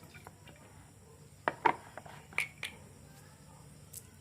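About five light clicks and taps of small carburetor parts being handled during disassembly, the loudest pair a little after one and a half seconds in; the engine is not running.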